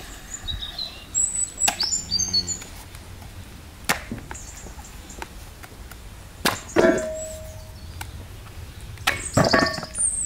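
A large knife chopping through a thick-skinned pumpkin on a wooden stump: a series of separate sharp chops with pauses between them, the loudest two-thirds of the way in and near the end.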